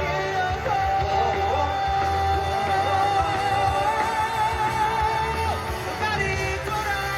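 Live pop-rock vocal with rock accompaniment: a male singer holds one long high note for about five seconds, with vibrato coming in near its end, then the line goes on.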